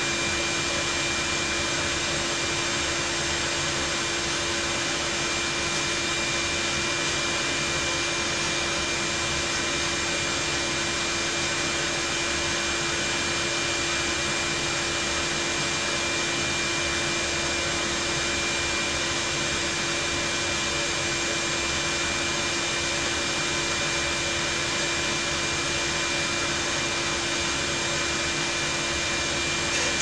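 Shop vacuum running steadily, an even rushing noise with a constant whine, while soot is cleaned out of a gas boiler's firebox.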